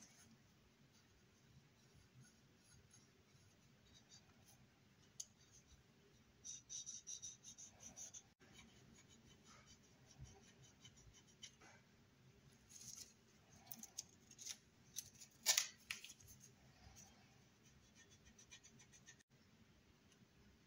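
Faint, intermittent scratching and rustling of thin metal foil being rubbed down with a cotton swab and trimmed with a hobby knife on a 1/24 scale model car body, with a sharper scrape about fifteen seconds in.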